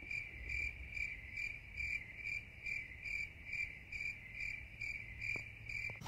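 Crickets chirping in a steady, even rhythm of about two pulses a second over a continuous high trill. The sound cuts off abruptly near the end.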